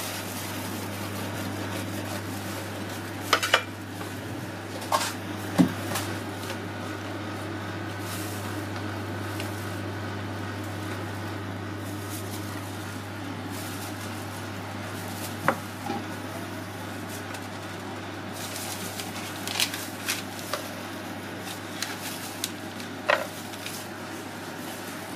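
Kitchen utensils clinking and knocking now and then: a knife on a wooden cutting board and a metal scoop against an ice cream tub and steel tray. A steady low hum runs underneath.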